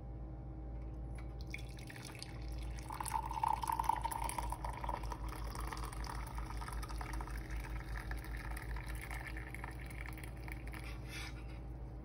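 Hot herbal decoction (kadha) being strained from the pan into a cup: a steady stream of liquid pouring and splashing, starting about a second and a half in.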